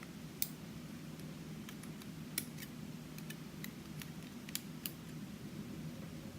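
Scattered light metallic clicks and ticks of small lock parts being handled as a pin-tumbler lock is taken apart, the sharpest about half a second and two and a half seconds in, over a faint steady hum.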